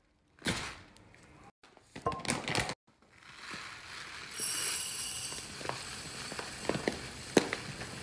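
A plastic bag of rice crinkling in short bursts, then dry rice grains pouring from the bag into a glass jar from about four seconds in: a steady hiss with scattered ticks of grains striking the glass.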